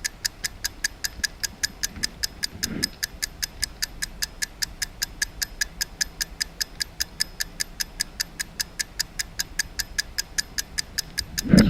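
Clock ticking steadily, about five ticks a second, as a stopwatch-style timer running while a challenge is timed. A louder noise comes in right at the end as the ticking stops.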